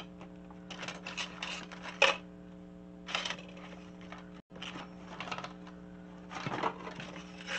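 Sheets of vellum and card being handled and set down on a cutting mat: short bouts of rustling and light clicks and taps, a sharper tap about two seconds in, over a steady low electrical hum.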